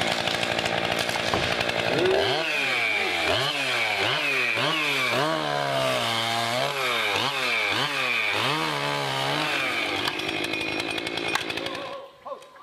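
Chainsaw running at speed, its pitch dipping and recovering over and over, then cutting off near the end.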